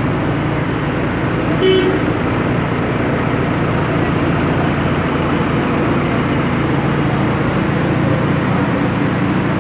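Steady rain falling on wet paving, with a city bus's engine running as the bus pulls slowly past. A short vehicle horn toot comes a little under two seconds in.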